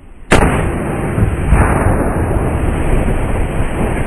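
A heated, part water-filled propane tank bursting in a fire: one sudden, very loud blast about a third of a second in, followed by a long, loud rush of noise that stays strong to the end. Steam pressure from the water boiling inside has ruptured the tank.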